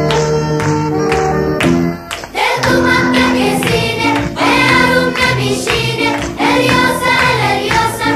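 Background music: plucked instrumental notes, then voices come in singing about two and a half seconds in.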